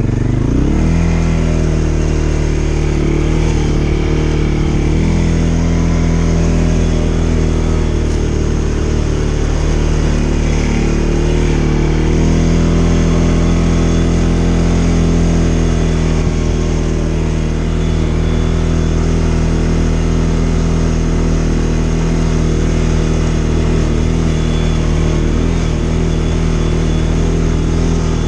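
CFMoto CForce ATV engine revving up as the quad pulls away, then running at a steady, moderate pace with small rises and dips in pitch as the throttle changes over rough ground.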